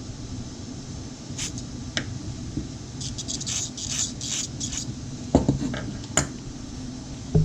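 Small metal carburetor parts of a chainsaw being handled and worked on: scattered light clicks, a stretch of scratchy scraping in the middle, and a few louder knocks near the end, over a steady low hum.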